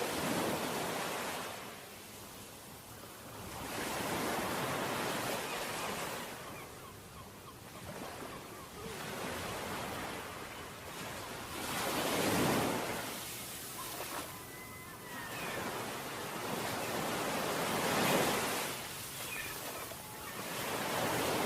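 Surf breaking and washing up a beach, a rush of noise that swells and fades every few seconds, with sea wind.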